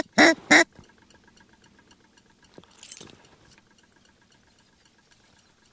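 Loud, close mallard-style quacks, the last few of a quick series, ending about half a second in, typical of a hunter blowing a duck call. After that only a faint, fast, regular ticking remains.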